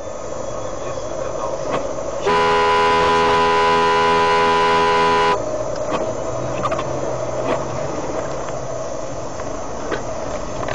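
A vehicle horn sounds one long steady blast of about three seconds, starting about two seconds in and cutting off sharply, over steady road and engine noise.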